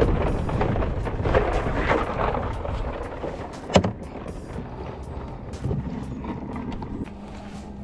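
Low rumbling noise on the microphone, like wind and handling, that fades after about three seconds. A single sharp plastic click comes just before the fourth second as the lid of a small plastic cooler is unlatched and opened.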